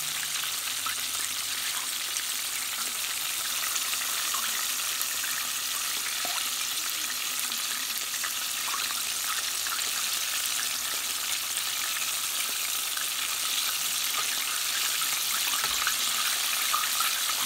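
Flour-and-cornstarch-coated chicken thigh pieces deep-frying in hot oil: a steady sizzling hiss with small crackles throughout.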